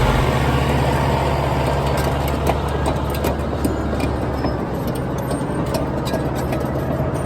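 Caterpillar bulldozer's diesel engine running steadily, with scattered sharp clanks and rattles.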